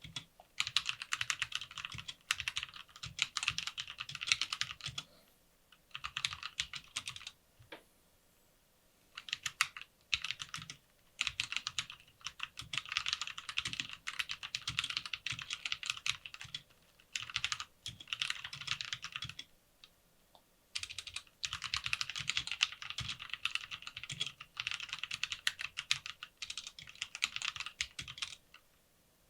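Lofree Wanderfree keyboard being typed on quickly: runs of rapid key clicks a few seconds long, broken by brief pauses.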